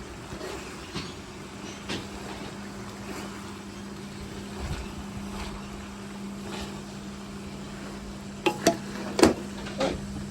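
Kitchen clatter: a steady low hum with a few faint taps, then four sharp knocks of dishes or utensils about eight and a half seconds in.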